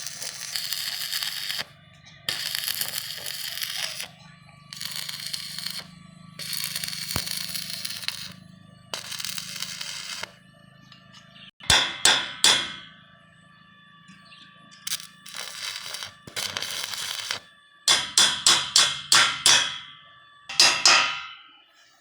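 Electric arc welding on steel railing in short runs of a second or two, each a hissing crackle over a low hum, broken by sharp metal-on-metal strikes, including a quick run of about seven blows near the end.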